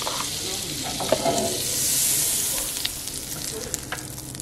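Butter sizzling in a hot pan, the hiss swelling about two seconds in, with a few light clicks of utensil on pan.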